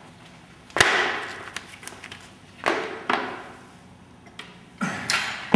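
Half a dozen sharp knocks and clanks from gym equipment being handled, each ringing out with a long echo in the hard, bare room; the loudest comes about a second in and several follow close together near the end.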